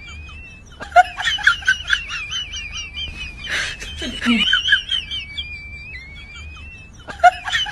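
Comedy sound-effect track of high, chirpy squeaks in short phrases, with a thin whistle-like tone gliding up and down between them.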